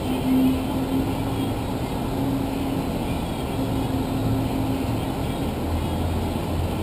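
Liebherr LHM 400 mobile harbour crane's engine and machinery running steadily: a low hum whose pitch shifts a little, with a deeper hum setting in near the end.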